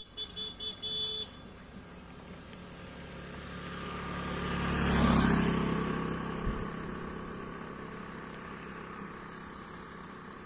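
A motor vehicle drives past, growing louder to a peak about five seconds in and then slowly fading away.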